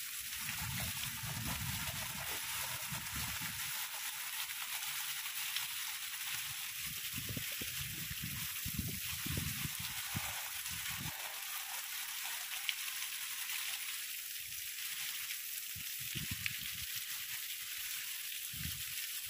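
Heavy rain falling steadily, a constant hiss, with a few sharp drop strikes close by. An irregular low rumble comes and goes underneath.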